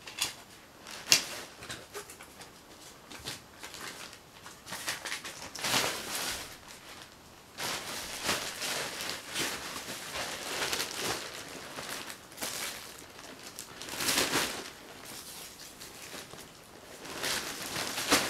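Thin plastic carrier bag rustling and crinkling in irregular bursts as it is handled and filled, with a sharp click about a second in.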